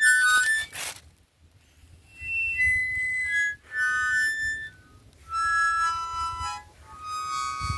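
Solo harmonica playing short phrases of held notes, separated by brief pauses, with a longer pause about a second in.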